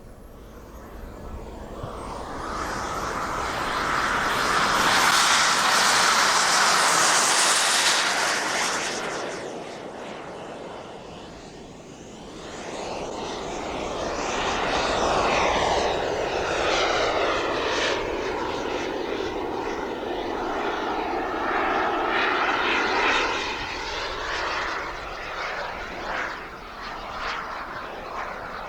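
Twin turbine jet engines of a large radio-controlled English Electric Lightning model flying past. The sound swells to a loud pass about four to nine seconds in and fades, then builds into a second pass whose pitch sweeps downward as the jet goes by.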